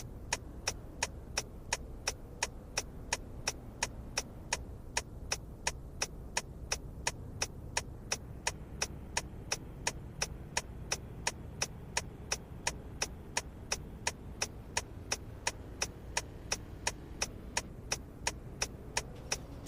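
Car turn-signal blinker ticking in an even rhythm, about two clicks a second, over a low steady hum.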